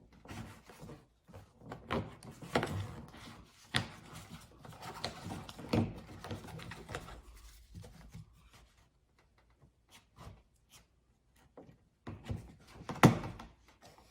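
A plastic trim tool scraping and prying at a small plastic cover on a car's rear hatch trim panel, with scattered clicks and knocks. After a few quiet seconds, a single sharp click near the end is the cover popping free.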